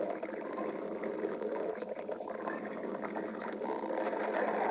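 A person's stomach growling, a continuous gurgling rumble that swells a little near the end, with a couple of faint clicks.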